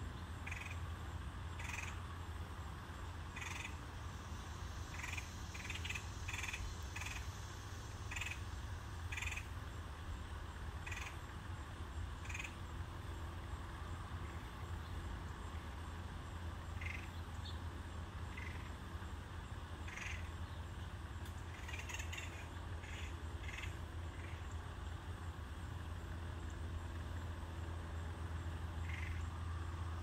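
Backyard birds giving short calls at irregular intervals, sometimes two or three in quick succession, over a steady low hum.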